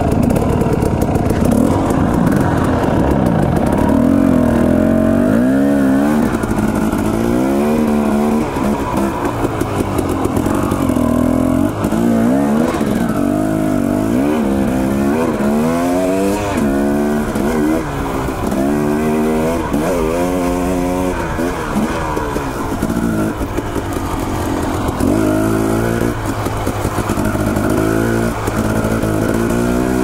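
Dirt bike engine revving up and down again and again as the rider works the throttle on a climbing singletrack trail.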